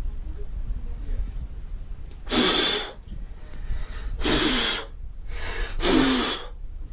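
A person gagging three times: loud, breathy heaves of about half a second each, with a falling grunt in the voice, in reaction to a foul stench.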